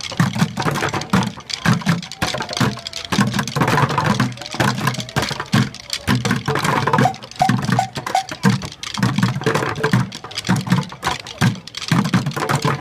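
A group of drummers playing plastic five-gallon buckets with drumsticks in a fast, steady rhythm: low thumps from the bucket bottoms mixed with sharper stick clicks.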